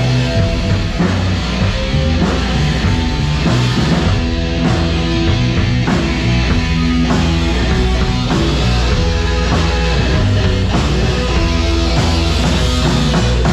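Live rock band playing loudly: amplified electric guitar over a drum kit, sustained guitar notes and a steady beat throughout.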